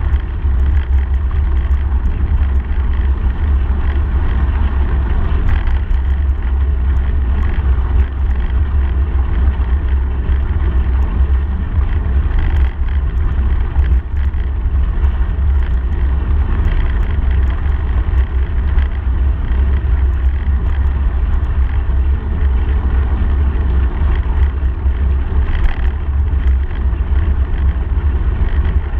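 Steady low wind rumble on the microphone of a camera on a moving bicycle, with tyre noise from rolling over a gravel path.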